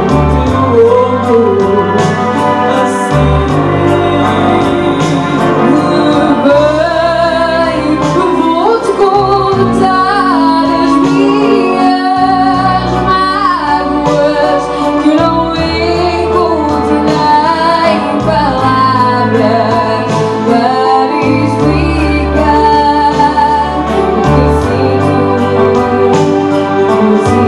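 A song: a woman's voice singing a melody with vibrato over instrumental accompaniment with held bass notes.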